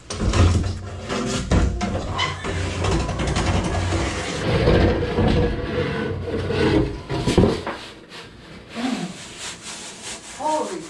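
Old ceiling-mounted bathroom exhaust fan being worked free of its clips and pulled from the ceiling opening: dense scraping and rubbing with irregular knocks, which fade after about seven seconds.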